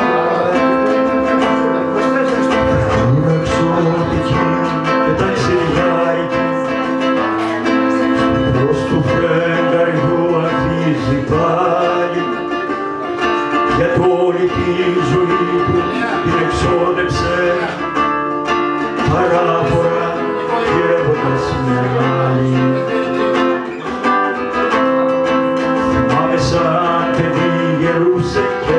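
Live Greek song performed acoustically: a man singing to plucked-string accompaniment.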